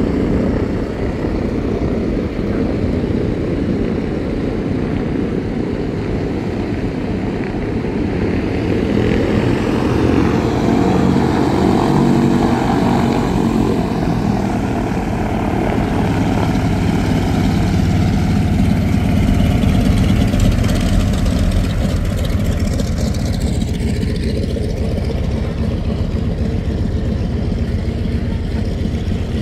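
Steady engine drone of a propeller aircraft running somewhere on the airfield, with a rise and fall in pitch about two-thirds of the way through.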